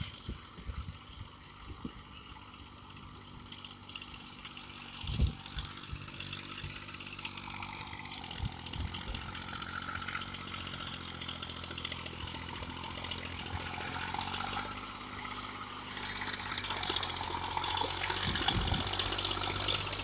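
Indo Farm 2035 DI 35 hp tractor's diesel engine running steadily under load while it pulls a rotavator through flooded mud, growing louder as it approaches, with splashing and churning getting stronger near the end. A single sharp knock about five seconds in.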